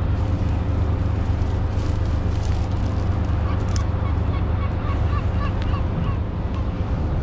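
A bird giving a quick series of short calls, about two a second, through the middle few seconds, over a steady low rumble. Dry grass rustles faintly as a stick is pushed through it.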